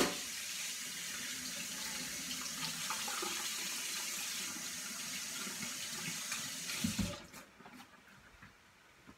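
Kitchen sink faucet running with hands being rinsed under it: a steady rush of water that shuts off about seven seconds in with a low thump.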